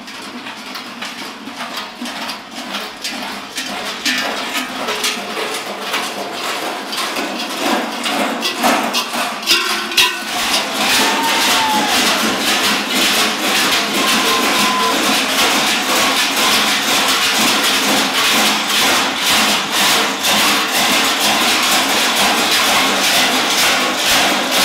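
Klaubauf costume bells clanging rapidly and without pause, the dense clatter growing louder about ten seconds in.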